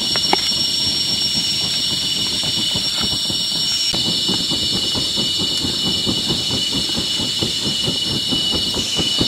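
A steel cleaver chopping tomatoes on a wooden cutting board in quick, regular strokes, several a second, growing denser about halfway through. A steady high insect drone of cicadas or crickets runs underneath.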